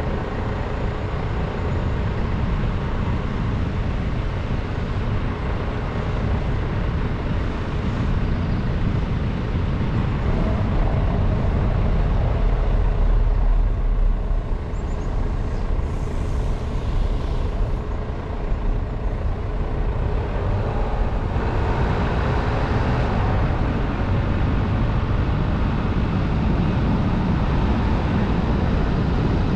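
A car being driven, with steady road and tyre noise and its engine running. A heavier low rumble comes about halfway through, while the tyres cross cobblestones.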